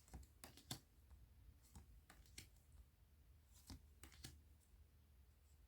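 Faint clicks and taps of oracle cards being handled and laid down, in three small clusters, over a low steady hum.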